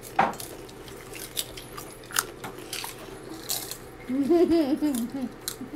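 Crunching bites and chewing of a dry salted shrimp snack: a few sharp separate crunches. A little after four seconds comes a short wavering hummed voice sound, the loudest thing here.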